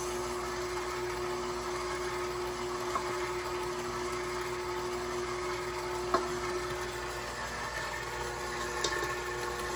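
KitchenAid Professional 6000 HD stand mixer running steadily with a constant hum, its flat beater mixing crumbly cookie dough; its main humming tone fades about seven seconds in.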